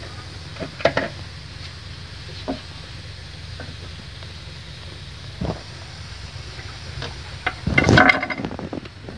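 Kitchen knife cutting apart a raw whole chicken on a wooden cutting board: scattered clicks, knocks and crackles of the blade and joints, with a louder burst of crackling knocks near the end. A steady low hum runs underneath.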